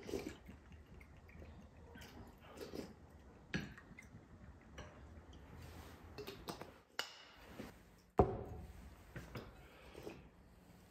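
Quiet mealtime sounds: liquid poured from a glass bottle into small glasses at the start, then spoons tapping soup bowls and eating, with scattered light clinks. The loudest is one sharp knock about eight seconds in.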